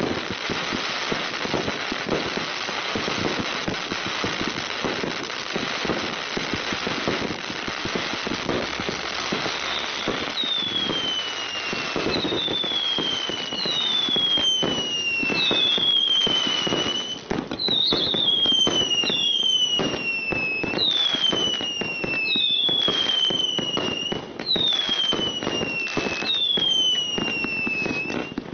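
TARRA Explosion 200-shot firework battery (BAT20030) firing, a dense continuous crackle of rapid shots and bursts. From about ten seconds in, a string of whistles joins the popping, each falling in pitch, roughly one every second and a half.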